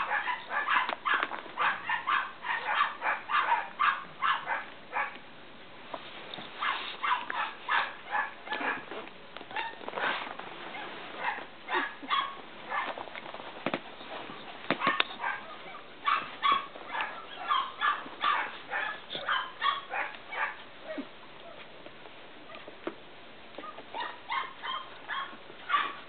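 Cavalier King Charles Spaniels yipping and barking while they play-fight, short calls coming in quick runs of several a second with pauses between.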